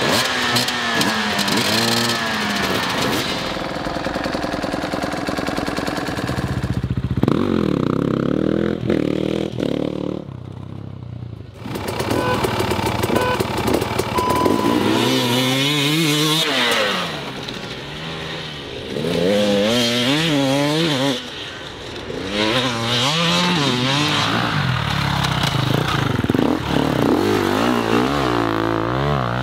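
Dirt bike engines revving up and down again and again, their pitch climbing and falling with each twist of the throttle, with a few short lulls.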